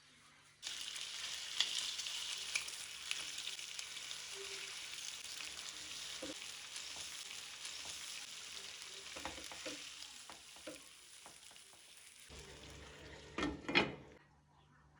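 Food sizzling and frying in hot oil in a pan, with steady crackling that starts suddenly under a second in. A few knocks and scrapes of stirring come through, the loudest near the end, before the sizzle cuts off.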